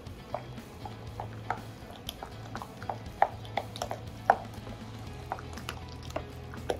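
A utensil mashing and stirring potato salad in a stainless steel bowl, giving irregular soft taps and clicks against the bowl, with two sharper knocks a little past three seconds and just past four seconds.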